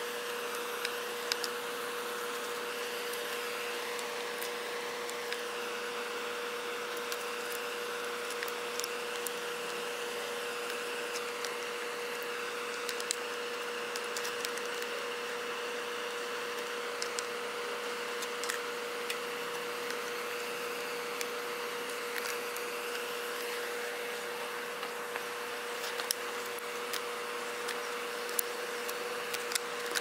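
A steady mechanical hum with one constant tone runs throughout. Over it come scattered small clicks and taps as an adjustable wrench and fingers work the switch's mounting nut on the fan's plastic motor housing.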